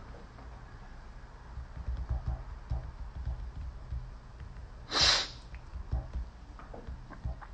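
A short, sharp breath through the nose about five seconds in, over quiet handling noise of low bumps and a few soft clicks.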